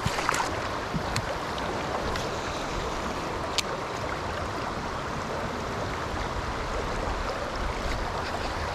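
Shallow, fast river water rushing steadily over rocks, with a few sharp clicks, the clearest about three and a half seconds in.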